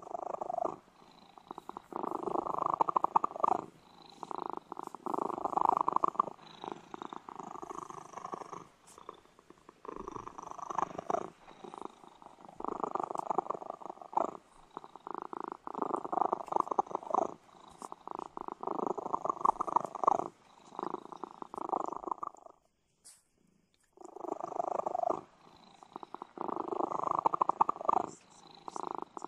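Domestic cat purring, in phrases a second or two long with short lulls between them, and a pause of about a second and a half near the end.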